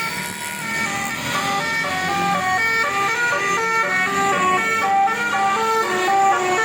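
Basuri musical horn on a vehicle playing a quick tune of short held notes that step up and down in pitch.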